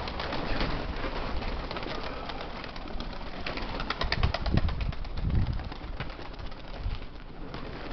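Strong wind rushing over the microphone with a low rumble, and domestic pigeons cooing a few times about halfway through.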